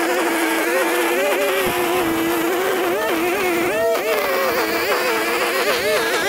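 Gas string trimmer's small engine running while cutting down grass, its pitch wavering up and down as the throttle varies.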